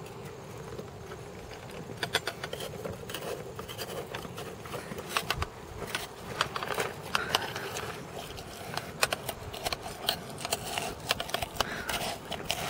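Lime halves and sugar being muddled in a metal cocktail shaker: a metal tool pressing, grinding and scraping inside the cup, with irregular clicks and knocks against its sides.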